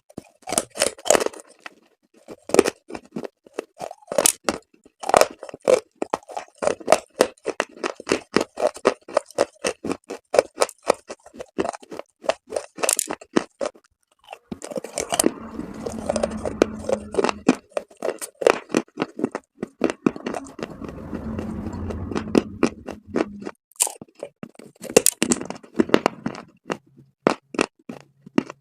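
Chalk coated in paste being bitten and chewed, a dense run of sharp crunches. In the middle it turns into a steadier grinding crunch for several seconds, then the separate crunches return.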